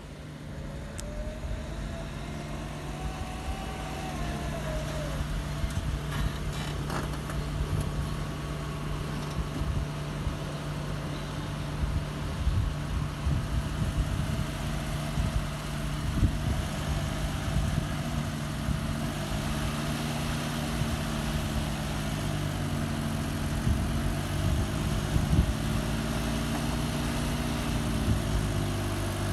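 Small Suzuki hatchback's engine running as the car drives up and then holds on a sloped ramp. It grows louder as the car comes closer, and in the second half the engine note rises and falls again and again with the throttle.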